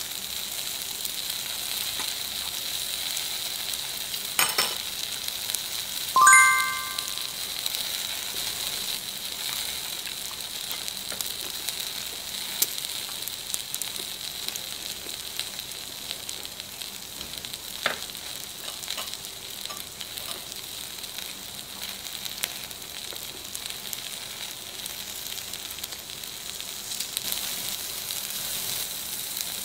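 Food sizzling steadily on a hot ridged grill plate over a portable gas stove, with a couple of sharp clicks. About six seconds in, a short chime-like tone rings out, the loudest sound.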